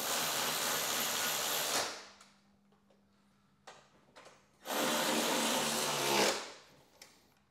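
Cordless electric ratchet running in two bursts, about two seconds and then a second and a half, driving the motorcycle's gas tank mounting bolts down tight, with a few small clicks between the runs.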